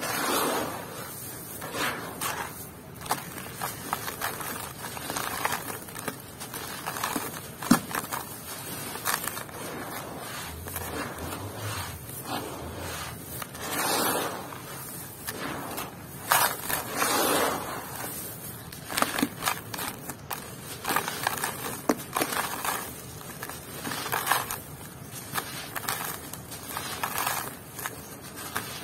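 Hands raking and scooping through dry crumbled clay grit in a large basin: gritty scraping and crunching in irregular swells, with grains pouring back down from lifted handfuls.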